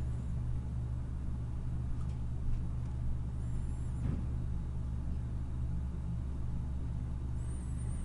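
A steady low hum, with two faint, brief high chirps about three and a half and seven and a half seconds in.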